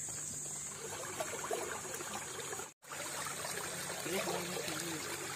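Water flowing steadily along a concrete-lined irrigation channel, a continuous rushing trickle; the sound cuts out for an instant about three seconds in.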